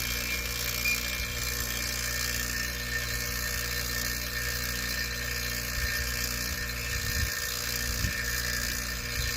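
Refrigeration vacuum pump running steadily, evacuating a newly installed heat pump's refrigerant line set after the pressure test. It is an even motor hum with a constant hiss above it.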